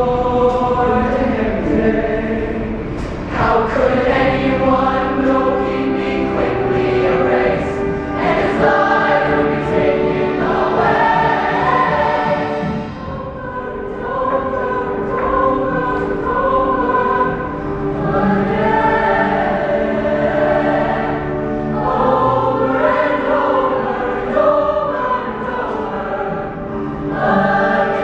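Mixed-voice high school show choir singing long held chords that shift every few seconds.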